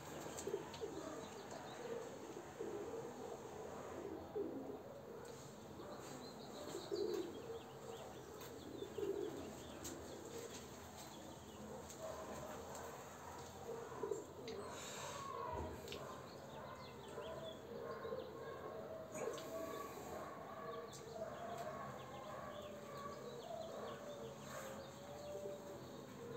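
Feral pigeons cooing, low soft calls repeated several times.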